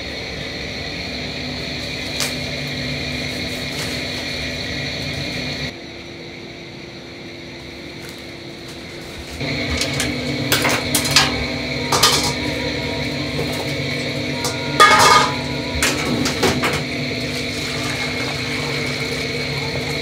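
Stainless-steel pots, bowl and cooking utensils clanking and knocking over a steady kitchen hum, with the densest run of clatter about three-quarters of the way through.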